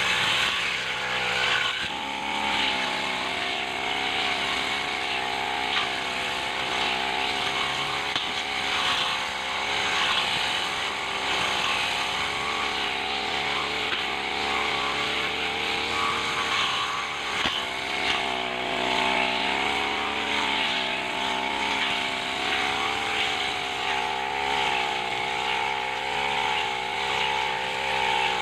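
Backpack brush cutter engine running at high speed as the cutting head slashes through grass and weeds. The engine pitch wavers slightly as it works.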